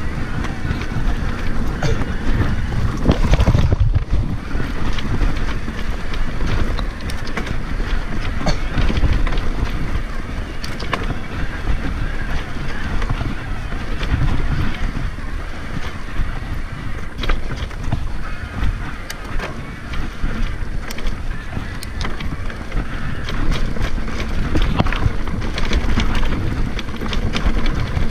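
Wind buffeting a helmet-mounted action camera's microphone while riding an electric mountain bike along a trail, with a constant rumble that swells and fades and many short clicks and rattles from the bike over rough ground.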